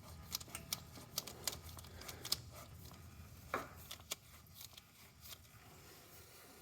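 Faint, irregular clicks and light scraping as a pre-filled spin-on oil filter is hand-threaded onto a John Deere 5425 diesel's filter mount, with a faint low hum underneath.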